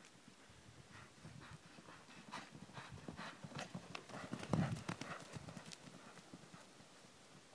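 Pony's hooves thudding on a sand arena at a canter, with a heavier low thud about halfway through as it lands over a cross-pole jump.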